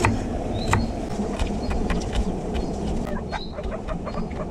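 Kitchen knife chopping vegetables on a wooden cutting board: irregular sharp chops, coming faster near the end.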